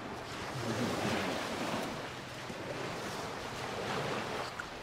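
Small surf washing in the shallows of a sandy beach, with wind on the microphone; the wash swells about a second in and again near the end.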